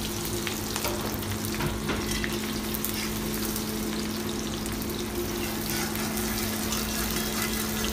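Sliced onions sizzling in hot oil in a steel wok, stirred with a long metal spatula that scrapes and ticks against the pan, over a steady low hum.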